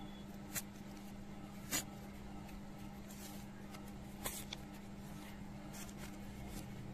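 Faint rustles and a few light taps of paper scraps being handled on a workbook page, played backwards, over a steady low hum.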